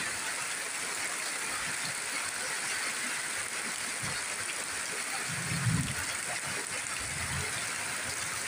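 Steady rain falling on banana leaves, an even hiss, with a couple of dull low thuds a little past halfway.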